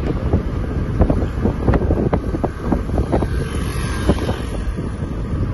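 Moving car with a steady rumble of road and engine noise, and wind buffeting the microphone in uneven gusts.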